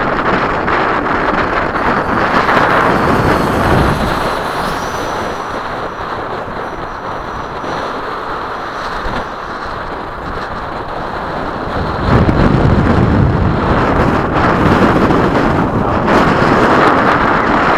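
Electric ducted fan of a radio-controlled F/A-18 jet, a 12-blade fan on an inrunner motor, rushing in flight, with a faint high whine that rises briefly about five seconds in. Wind buffets the microphone throughout, and the rushing grows louder about twelve seconds in.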